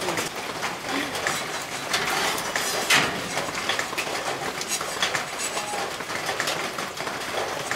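Irregular clatter of knocks and taps from building work over a steady noisy background, with one louder knock about three seconds in.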